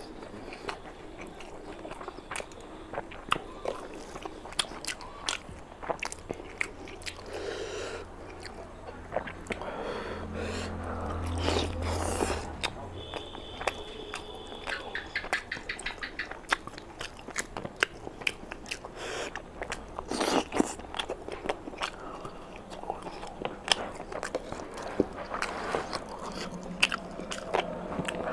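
Close-up mouth sounds of a person eating rice, curry and chicken by hand: wet chewing with many sharp lip-smacking clicks, and bites into a chicken leg.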